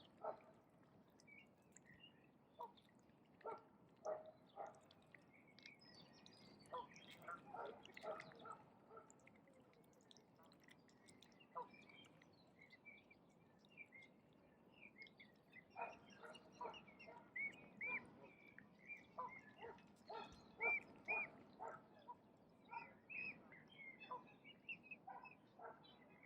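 Ducks quacking faintly in short runs of calls, sparse at first and busier in the second half, with small birds chirping higher up.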